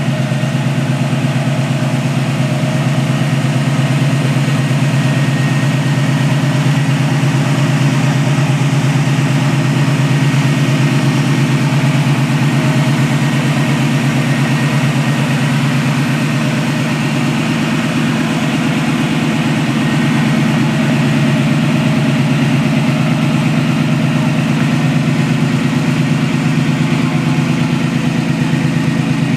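GM Performance 350 small-block V8 crate engine idling steadily.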